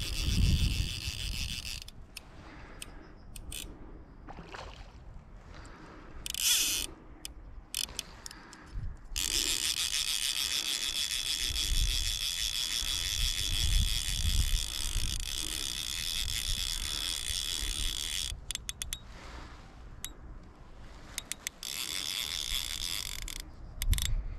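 Click-and-pawl fly reel ratcheting as a hooked rainbow trout pulls line off it, in several runs: a short one at the start, another about six and a half seconds in, a long steady run of about nine seconds in the middle, and a shorter one near the end.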